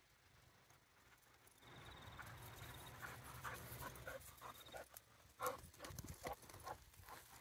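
A dog panting close by in quick, short breaths, starting about two seconds in.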